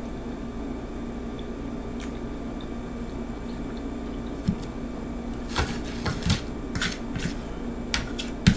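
A steady low room hum, then, from about halfway through, a fork clicking and scraping against a metal serving platter in about a dozen light, irregular clicks.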